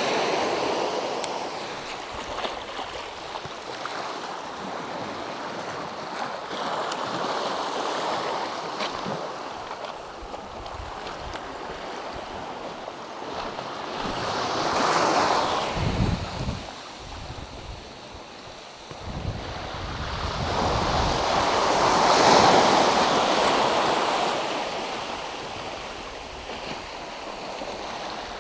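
Small sea waves washing onto the shore, swelling twice to a louder wash and falling back, with gusts of wind buffeting the microphone.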